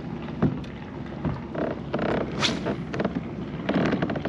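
Scattered knocks and thumps on a fishing kayak, with a short hissing splash about halfway through.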